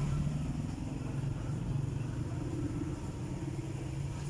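Steady low hum of a running engine, likely a motor vehicle.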